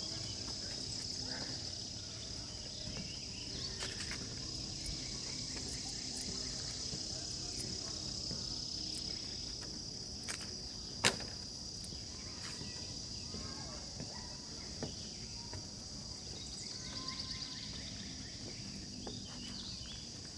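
Steady high-pitched chorus of summer insects, one unbroken drone, with a single sharp click about eleven seconds in and a few fainter ticks.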